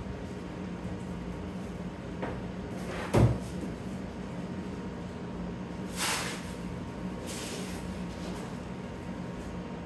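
Unpacking slot car track: one sharp knock about three seconds in as a piece is set down, then two short scraping rustles of cardboard and packing near six and seven seconds as a large piece is pulled from the box, over a steady low hum.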